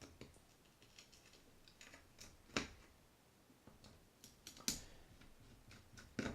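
A screwdriver clicking and scraping as it turns the small screws in the spool of a Penn 260 Slammer spinning reel, with three sharper clicks. The screws make little grinding noises, which the repairer links to the reel's use in salt water.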